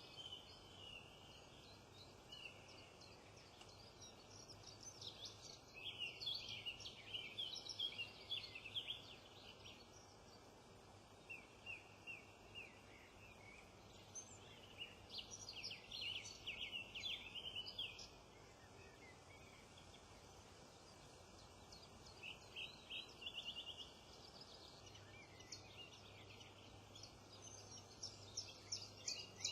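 Small wild birds singing and chirping in several bouts of quick high notes and trills, with short pauses between the bouts.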